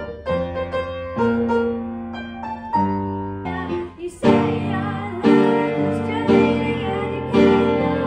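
Upright piano playing slow, sustained notes, then an abrupt cut about four seconds in to a boy singing over an accompaniment with chords struck about once a second.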